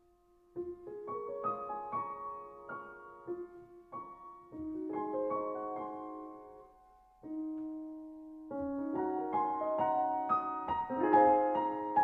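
Background piano music: a slow melody of single notes that starts about half a second in, thins out briefly past the middle, then grows fuller and louder toward the end.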